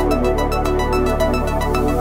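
Electronic background music with sustained bass notes and a quick, even ticking beat.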